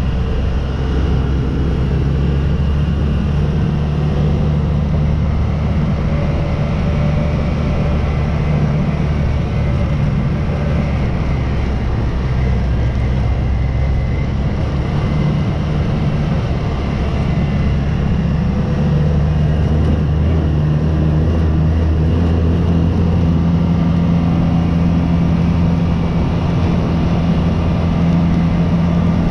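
An engine running steadily under way, its pitch and level rising slightly about two-thirds of the way through.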